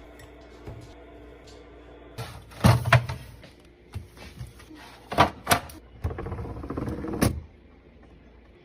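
Hard clacks and knocks of containers and lids being handled and set in place, a few single knocks and then a short run of clattering that stops abruptly near the end.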